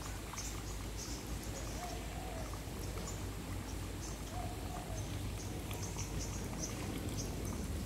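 Outdoor ambience: faint birds chirping over a steady low rumble, with one short call repeating about every two seconds.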